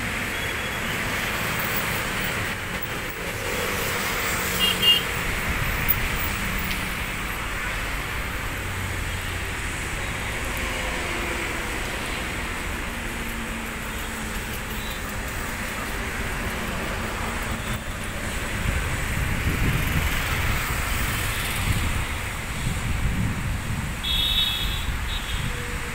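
Steady hum of distant road traffic, with a couple of brief high beeps and low wind rumble on the microphone in the last several seconds.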